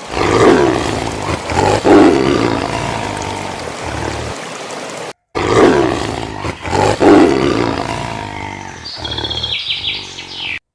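A big cat roaring: loud, rough roars that come in heavy bursts. The same short stretch plays twice, with a brief silent break about five seconds in.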